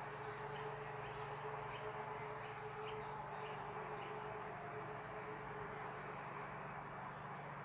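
A distant civil-defence siren holding a faint steady tone, with small birds chirping over it and a low steady background rumble.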